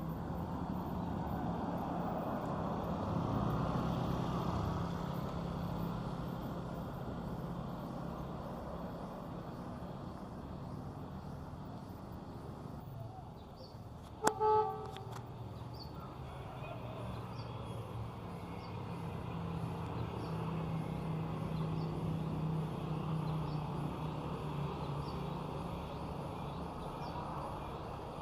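Large diesel bus engines running, their hum swelling and fading as the vehicles move, with one short horn toot about halfway through.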